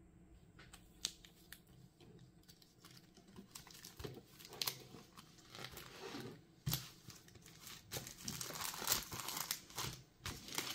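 Faint, irregular crinkling and rustling with scattered small clicks, sparse at first and growing busier from about four seconds in.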